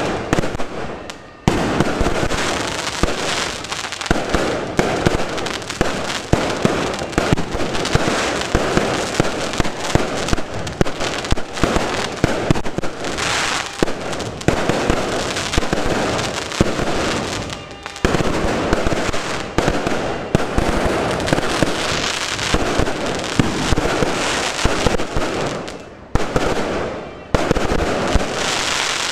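Fireworks going off in a rapid, continuous barrage of bangs and crackles, with brief lulls about a second and a half in, near the middle, and a couple of seconds before the end.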